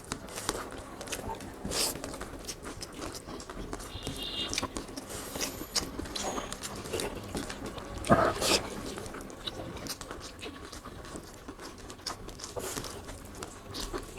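People eating beef curry and rice: scattered small clicks and wet smacks of chewing and of food handled on plates, with a brief louder sound about eight seconds in.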